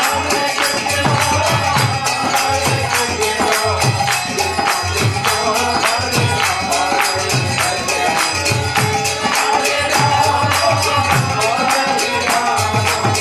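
Kirtan music: a lead voice sings a chant over a harmonium, with mridanga drum strokes and a fast, steady clash of karatalas (small hand cymbals) keeping time.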